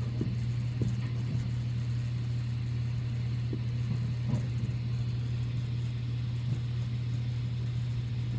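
A steady low hum of room noise, with a few faint short ticks or knocks on top.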